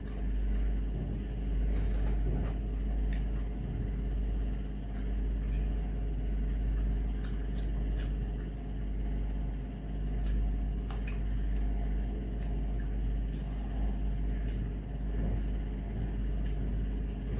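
Steady low rumble, with scattered soft clicks and smacks of eating by hand: fingers mixing rice and curry on a metal plate, and mouth sounds.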